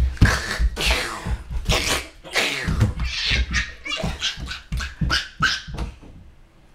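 A young boy making sound effects with his mouth: a quick string of hissing, spitting bursts, many of them falling in pitch, that fade out near the end.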